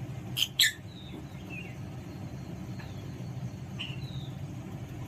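Alexandrine parakeet giving two short, sharp, high-pitched calls about half a second in, followed by a few faint chirps, over a steady low hum.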